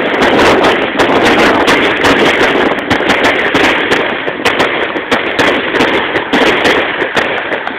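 Fireworks going off in a rapid, continuous string of sharp cracks and pops, several a second, over a steady crackling din.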